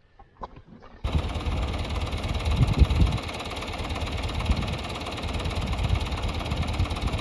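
Tractor engine idling close by, cutting in abruptly about a second in as a steady low running sound.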